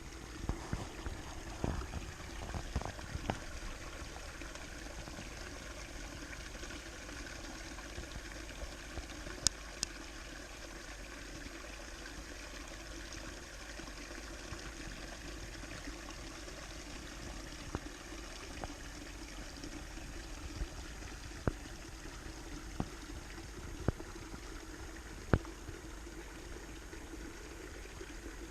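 A woodland stream trickling steadily over rocks, with a few scattered sharp clicks and taps, most of them in the first few seconds.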